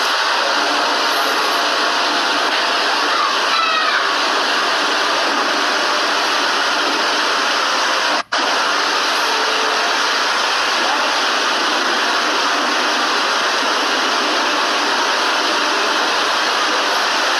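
Steady, loud rushing hiss, like static or air noise on the microphone, with no voice in it. It cuts out for an instant about eight seconds in.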